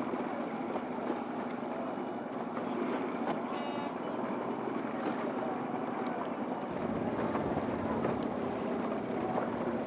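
Indistinct shouting and calling from many voices at once, over steady wind buffeting the microphone and the wash of water.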